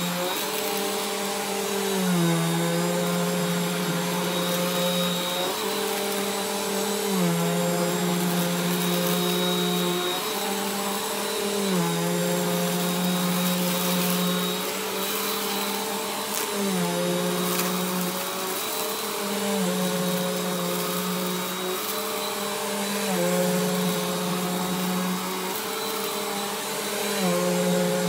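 Bissell Compact upright vacuum cleaner running over a shag rug. Its motor hum shifts slightly down and back up in pitch every two to three seconds as it is pushed and pulled in strokes.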